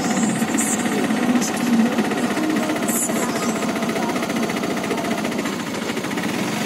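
Small engine running with a rapid, steady chugging.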